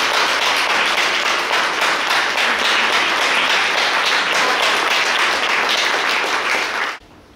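Audience applauding, a dense, steady patter of many hands clapping that cuts off suddenly near the end.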